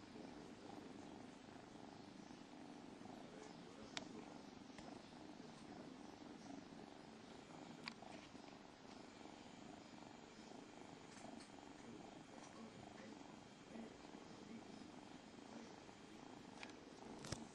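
Faint, steady cat purring with a fine rhythmic pulse, heard while kittens nurse. Three short sharp clicks break in, about four seconds in, about eight seconds in and near the end.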